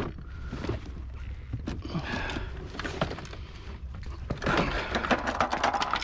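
A Segway electric kick scooter being wrestled free from a tangled pile of junk, its metal frame and handlebar rattling and knocking against the other items. The clatter becomes dense and busy in the last second and a half.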